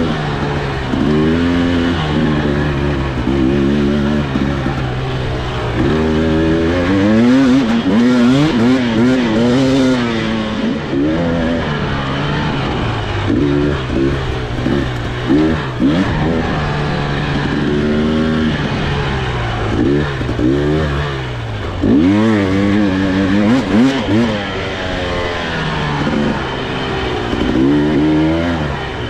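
Husqvarna TE300i 300 cc two-stroke dirt bike engine being ridden, its pitch rising and falling constantly with the throttle through changes of speed.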